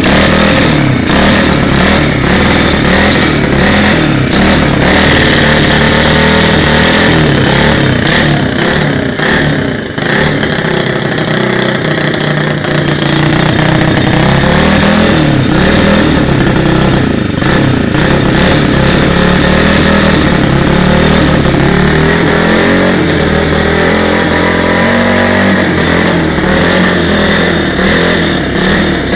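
125cc pit bike engine clamped in a bench vise for a test run, running loud, its revs rising and falling again and again, with a brief drop in revs about ten seconds in.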